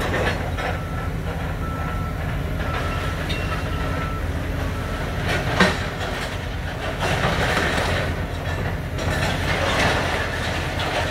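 Hitachi excavator's diesel engine running steadily while its bucket works a heap of twisted steel demolition debris, with a sharp metal clank about halfway through and a louder rattling of scrap in the second half. An intermittent high tone sounds in the first few seconds.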